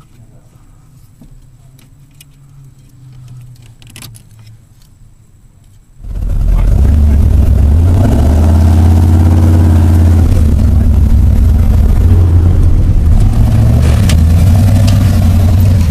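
A few faint clicks from hand work on a pedal clip, then about six seconds in a pickup truck engine comes in loud and runs, its pitch rising and falling as it revs.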